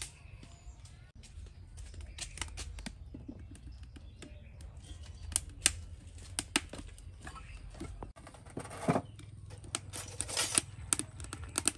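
Kitchen handling sounds: scattered clicks and knocks of utensils, dishes and baskets being moved, with a cluster of louder knocks about nine seconds in and a short rustle just after, over a low steady hum.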